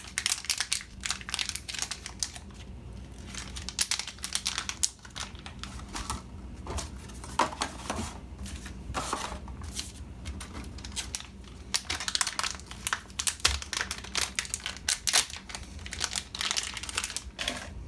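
Plastic packaging crinkling and rustling in irregular bursts as a camera ribbon cable is taken out of it.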